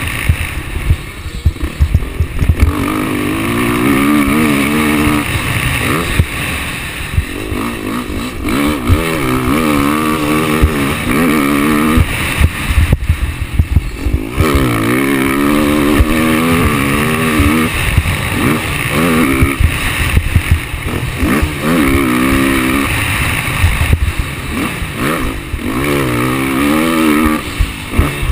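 Motocross bike engine revving hard and easing off over and over, its pitch climbing and dropping every second or two as it is ridden round a dirt track. Wind and knocks rumble on the microphone throughout.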